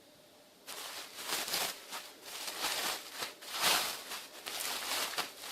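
Packaging being handled and rustled during an unboxing: irregular crinkling and rustling bursts that start about a second in and carry on, loudest around the middle.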